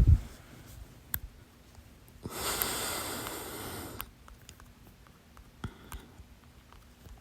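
A person breathing during a bout of hiccups: one breathy hiss lasting nearly two seconds, starting about two seconds in. A low thump at the very start and a few faint clicks come before and after it.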